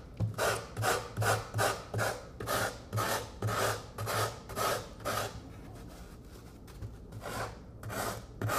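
Form rasp scraping a foam taxidermy body form in quick back-and-forth strokes, about three a second, contouring the foam. The strokes stop for about two seconds past the middle, then start again.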